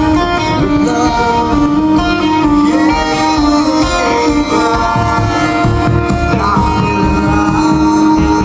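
Live rock band playing: held guitar and keyboard notes, with drums and bass coming in about five seconds in.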